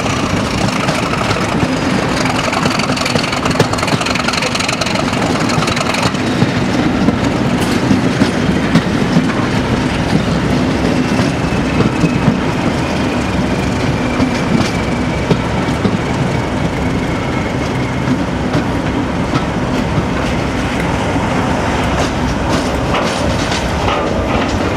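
BR Class 37 diesel locomotive 37109 running with a train, its English Electric V12 engine heard from an open window of the coach behind. Wheels click over the rail joints, and a high turbocharger whistle slowly falls in pitch.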